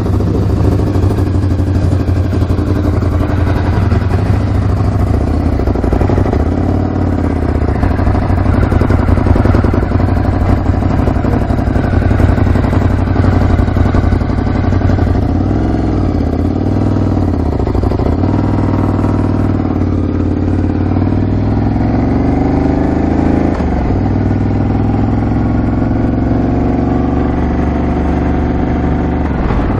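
Ducati Scrambler 1100's air-cooled L-twin engine running as the motorcycle pulls away, revs rising and falling. It then climbs steadily and drops sharply at a shift up to second gear about 23 seconds in, after which it runs steadily.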